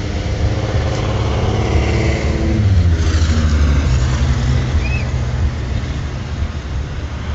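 Car engine running close by, its pitch dropping about two and a half seconds in as the revs fall, over a low rumble.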